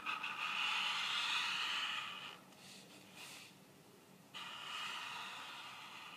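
Calligraphy pen scratching across paper in two long strokes, separated by a pause of about two seconds as the nib is lifted.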